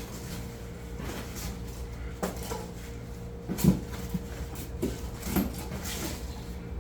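Rustling and scattered knocks as unpacked furnace-kit items and packing are handled in a cardboard box, with one louder knock about halfway through, over a steady low hum.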